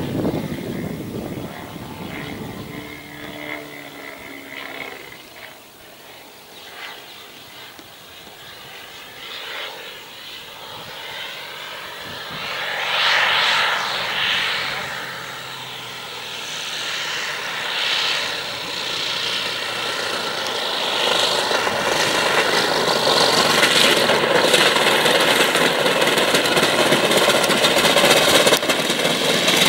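Giant radio-controlled Yak-55's 3W 150cc petrol engine and propeller, throttled back and faint while the plane is far off, swelling as it passes close on approach about halfway through. It then grows steadily louder toward the end as the plane rolls on the runway near the microphone.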